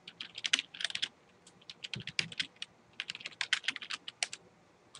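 Typing on a computer keyboard: quick runs of key clicks broken by a few brief pauses.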